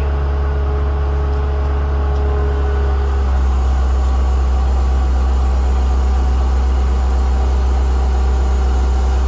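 Gehl CTL-70 tracked skid steer's diesel engine running steadily. About three seconds in, the steady tone shifts slightly as a mid-pitched hum drops away and the deep low rumble gets stronger.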